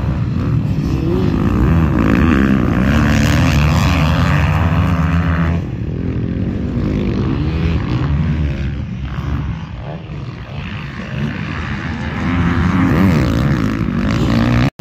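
Several motocross bikes riding the track, their engines revving up and down through the gears as they take the turns. Loudest over the first six seconds as a group of three passes close, then fainter as the riders move away, rising again near the end.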